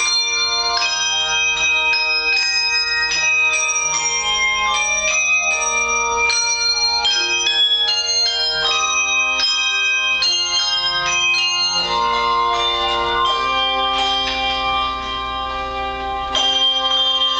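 Hand bell choir playing: many hand bells struck in quick succession, their notes ringing on and overlapping. The sound drops briefly near the end, then comes back in loudly with a full chord of bells.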